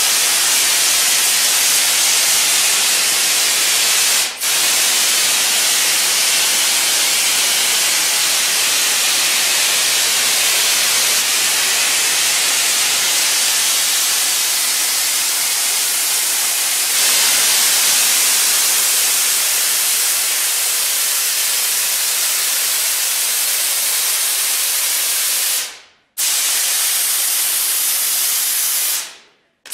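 A loud, steady hiss. It dips briefly about four seconds in, cuts off sharply near the end, starts again, then stops.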